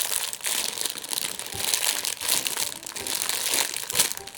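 Close, irregular crinkling and rustling as squishy toys and their wrapping are handled, with small clicks among it.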